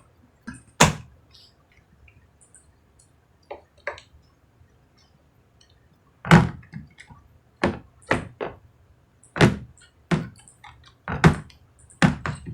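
Hard plastic Star Wars Mission Fleet toy pieces knocking and clicking as they are handled and fitted together. The knocks are sharp and irregular: a few in the first half, then a run of them about one a second from about six seconds in.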